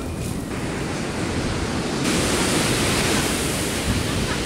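Ocean surf breaking and washing up the beach, a steady rushing that swells a little louder about two seconds in, with wind rumbling on the microphone.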